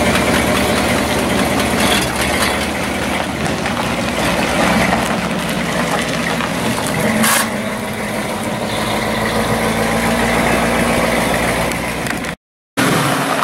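Ford Galaxie convertible's engine idling, then pulling away and fading as the car drives off. The sound cuts out for a moment near the end.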